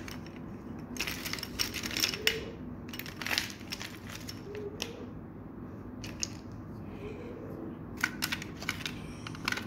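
Plastic markers and coloured pencils clattering and knocking together as a hand rummages through a plastic box full of them, in bunches of quick clicks with short pauses between.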